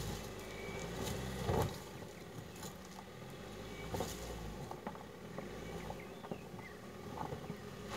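Fiat Toro 4x4 pickup's engine labouring as it crawls up a steep, rutted dirt track, with scattered knocks from the climb.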